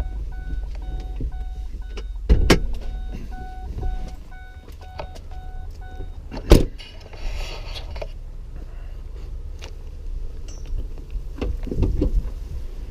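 A car's warning chime beeping about twice a second, with a thump a couple of seconds in. A car door slams about six and a half seconds in, and the chime stops. A low steady rumble runs underneath.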